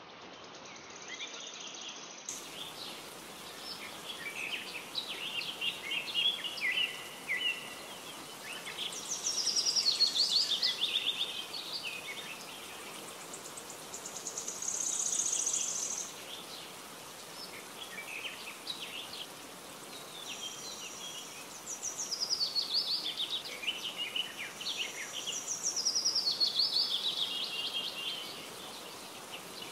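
Birds singing and chirping over a steady background hiss, with fast descending trills recurring every few seconds.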